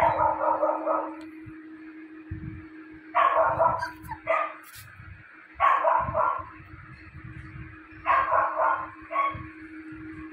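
Japanese Spitz puppy barking and yipping in short high-pitched bursts, about four times, two to three seconds apart.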